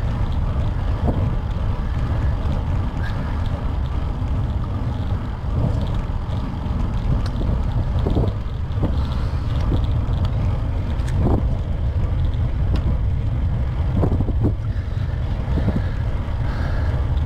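Wind rumbling on a bike-mounted camera's microphone as a road bike climbs at a slow pace, with a few short knocks or clicks scattered through.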